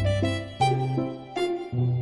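Background music: piano-like keyboard notes struck every half second or so over a steady bass.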